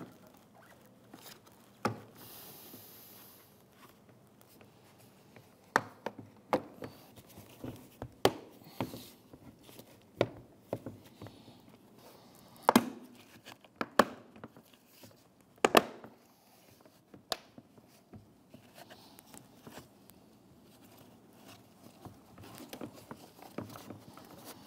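Locking tabs of a new plastic front lower grille for a 2011–2016 Hyundai Elantra snapping into the bumper cover as the grille is pushed down by hand: a dozen or so sharp clicks at irregular intervals.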